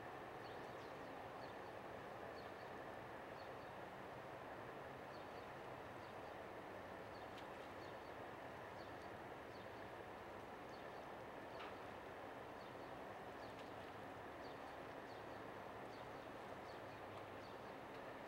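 Steady low rumble and hum of a large container ship passing, with small birds giving short high chirps every second or so.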